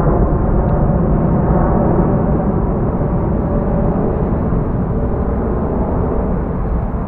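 Jet engine noise from a Boeing 787 Dreamliner departing at takeoff thrust: a loud, steady, deep rumble that eases slightly near the end.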